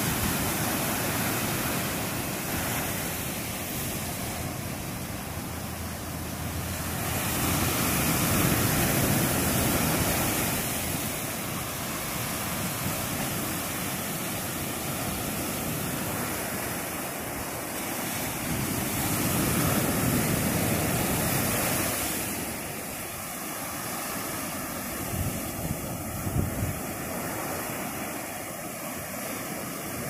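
Ocean surf breaking on a sandy beach: a continuous rushing wash of waves that swells louder twice as bigger waves come in, about a third of the way through and again about two-thirds through. A few brief thumps come near the end.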